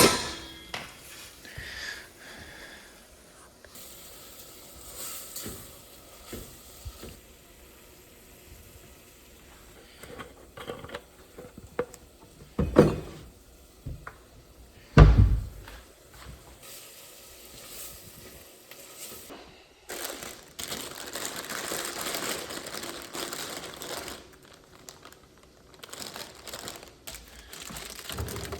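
Kitchen work sounds: scattered small clicks and clatter, two heavy thumps about halfway through, and a few seconds of hiss a little after that.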